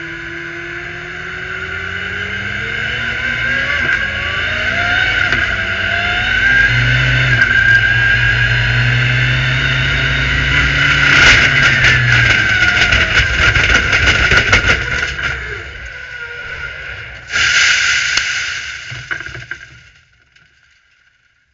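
Turbocharged race car engine heard from inside the car, pulling hard up through the gears with its pitch rising at each gear. About eleven seconds in, a dense rattling clatter breaks out and the engine fades away: the engine is failing and dies, leaving the car to coast to a stop. A short loud hissing burst comes near the end, then the sound dies out.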